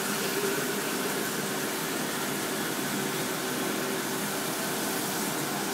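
Kitchen tap running in a steady stream, filling a coffee machine's water tank.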